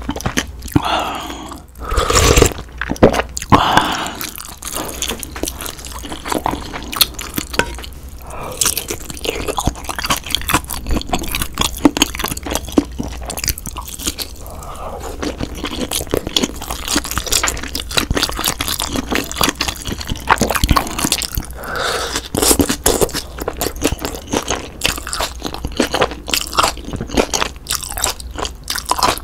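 Close-miked eating of budaejjigae (Korean army stew): a spoonful of broth taken at the start, then chewing and biting through slices of Spam and noodles. The chewing makes a dense run of small wet mouth clicks.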